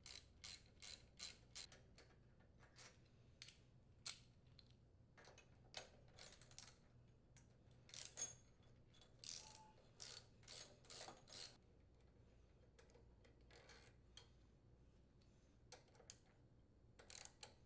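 Faint clicking of a ratchet wrench with a 3/8-inch socket, in short irregular runs, as the cylinder head mounting bolts are loosened and unthreaded.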